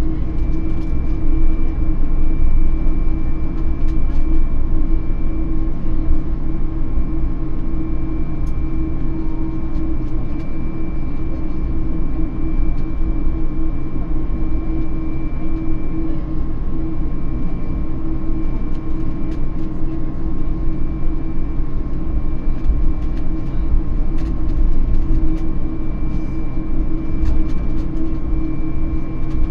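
Steady cabin noise inside an Airbus A220-300, its Pratt & Whitney geared turbofan engines running with several steady tones over a constant rush.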